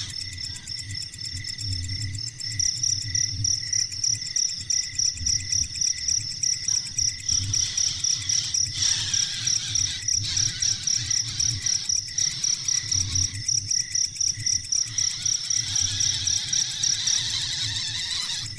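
Insect chirping in a fast, very regular series of high-pitched pulses, growing louder about two and a half seconds in and stopping shortly before the end.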